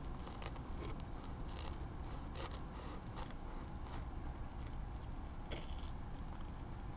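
Knife sawing through the toasted crust of a grilled hot sandwich on a wooden cutting board: a series of short, irregular scraping strokes of the blade.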